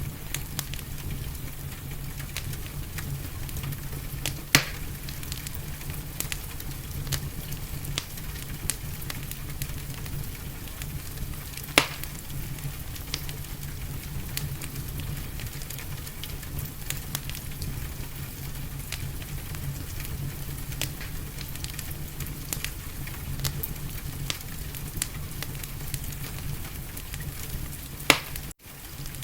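Wood fire crackling in a fireplace: a steady hiss with a constant stream of small ticks and snaps, and three much louder sharp pops, about four seconds in, near the middle, and near the end. The sound drops out for an instant just before the end.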